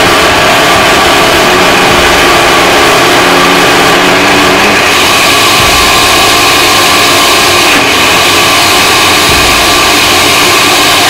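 Countertop blender motor running loud and steady, churning a thick mixture of frozen bananas and cocoa powder; the tone shifts slightly about halfway through.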